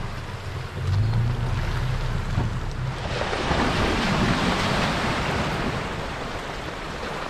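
A vehicle driving up a rough, snowy road. A low engine hum comes first, and from about three seconds in a louder, steady rushing noise of the tyres on the road surface builds up.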